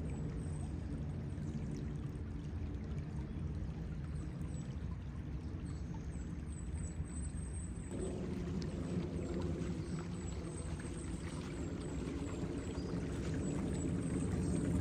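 Running water flowing steadily, as from a creek beside a trail. A low hum joins it about eight seconds in.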